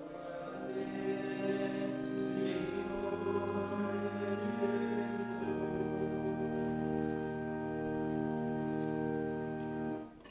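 Choir singing the Gospel acclamation of the Mass in slow, sustained chords that shift a few times and stop about ten seconds in.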